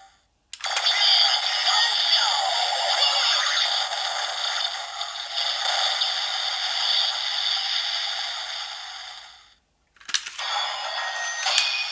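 DX Ohger CrownLance toy's built-in speaker playing its 'King-Ohger Finish' finisher sound: a synthesized voice call over electronic music and effects, thin with no bass, lasting about nine seconds. After a brief silence a button click sets off the start of the next finisher sound near the end.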